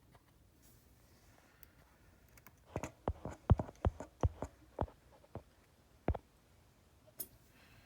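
A quick series of sharp clicks and light taps from small repair tools and phone parts being handled and set down during an iPhone repair, about a dozen in a few seconds, with one more near the end.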